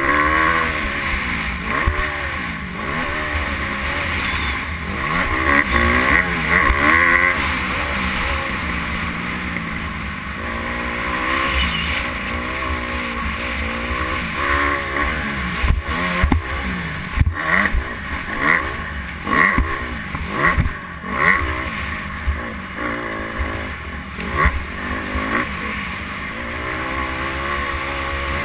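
Dirt bike engine revving up and down again and again as the rider accelerates, shifts and backs off around a motocross track, heard from a helmet-mounted camera. About two-thirds of the way through comes a run of short, sharp throttle blips.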